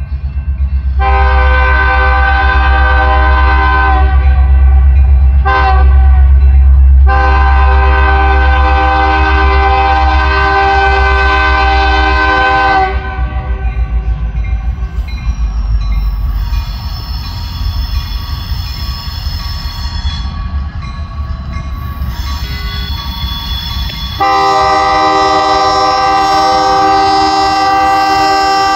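Diesel locomotive air horn sounding as the train approaches: a long blast, a brief one, a long held blast, then another long blast near the end. A deep engine rumble runs underneath.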